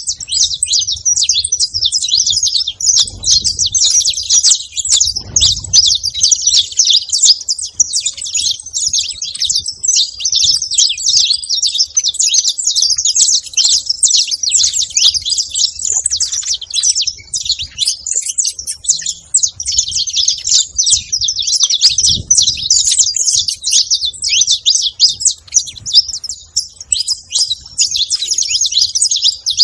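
Saffron finch singing: a continuous, rapid stream of high, twittering chirps and trills with no pause.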